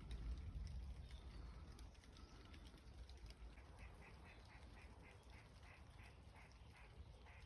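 Faint animal calls: a quick run of short, evenly spaced calls, about five a second, starting about halfway through, over a low steady rumble.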